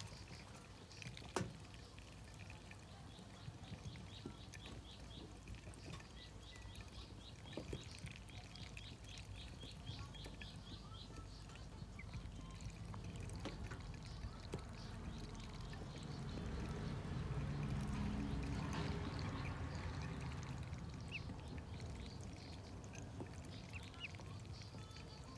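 Newly hatched ducklings peeping, a run of short high calls about three a second through the first half. Under them runs a faint steady background noise, and a low rumble swells up and fades around the middle.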